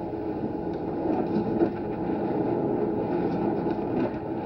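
Steady low rumbling background noise with no speech, with a faint click about one and a half seconds in.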